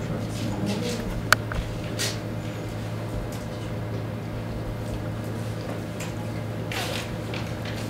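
Room tone with a steady low hum, one sharp click about a second in, and a couple of soft rustles.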